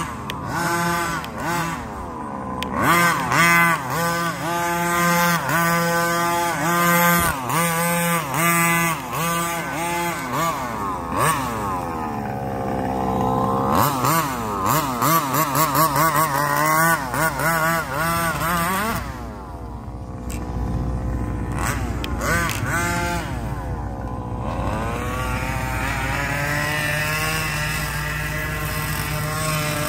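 30cc two-stroke engine of a gas-powered 1/5-scale Baja 5T RC truck, revving up and down again and again as it is driven, with the pitch rising and falling in quick swells. Over the last few seconds it settles into a steadier high drone.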